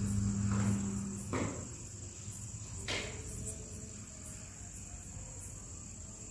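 Crickets chirping steadily in a high, even trill. A low hum fades out about a second and a half in, and there are two soft knocks, about a second and a half apart.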